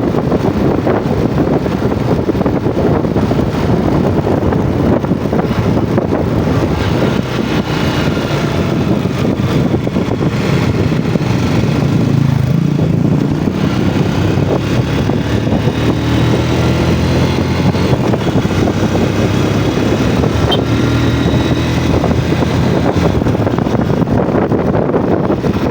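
Yamaha Jupiter MX motorcycle's engine running under way, mixed with wind and road noise. The engine pitch rises and falls a few times midway and again in the later part as the throttle changes.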